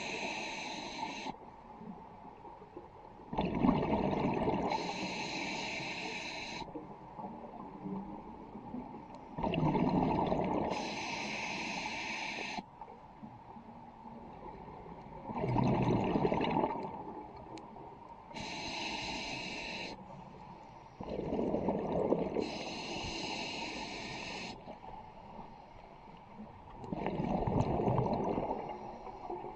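Scuba diver breathing through a regulator underwater, about once every six seconds: a hissing inhale, a pause, then a louder rush of bubbling exhaled air.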